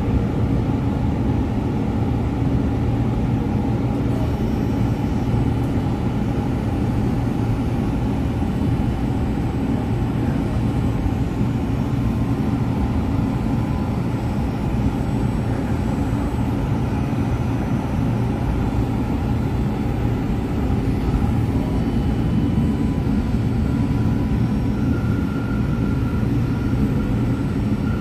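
Steady running rumble of a CTrain light-rail car under way, heard from inside the car.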